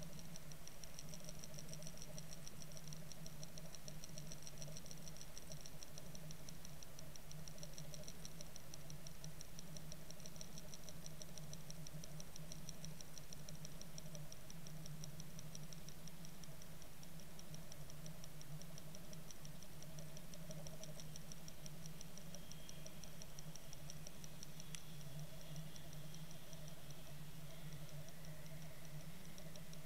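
Muffled underwater sound picked up inside a sealed fishing-line camera as it is towed over the bottom: a steady low hum with a fast, even, fine ticking above it.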